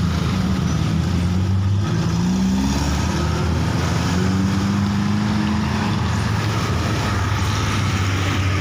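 A motor vehicle's engine running steadily, rising in pitch about two to three seconds in as it speeds up, over a steady background noise.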